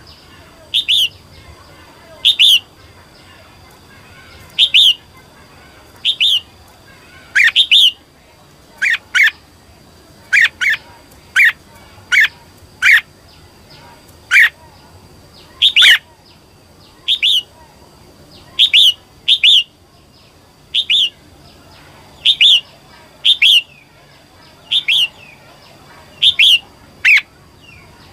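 Female red-whiskered bulbul giving a long run of short, sharp calls, each sweeping steeply down in pitch, about one a second and now and then in quick pairs.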